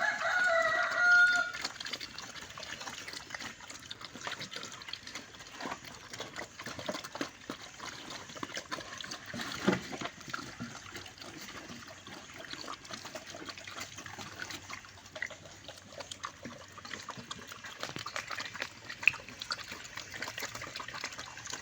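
Wild pigs feeding: a steady run of small wet crunching, chewing and slurping noises. A short high animal call sounds at the start.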